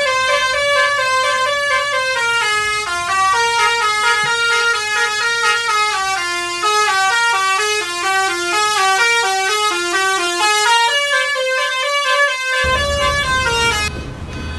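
Bus Basuri multi-tone musical horn playing a melody of stepped, held notes that change pitch several times a second. Near the end the notes fade and a low rumble takes over.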